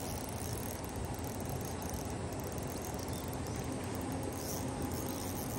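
Insects chirping at a high pitch in irregular pulses over a steady low rumble.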